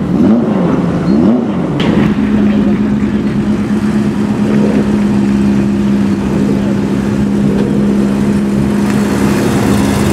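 Ferrari F40 twin-turbo V8 blipped twice with quick rises and falls in revs. After a click about two seconds in, it settles to running at a steady engine speed.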